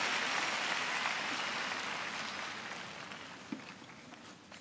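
Large arena crowd applauding, the clapping steadily fading away, with a single knock about three and a half seconds in.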